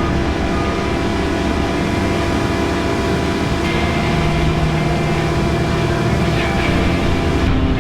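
Heavy diesel machinery running steadily: a wheel loader working at a Trecan 80 PD snow melter, with the engine tones shifting in pitch about halfway through.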